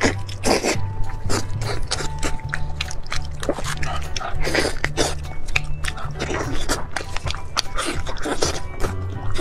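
Background music with a steady bass beat, over close-miked eating sounds: wet chewing, lip smacks and short clicks as roasted chicken is torn apart and eaten.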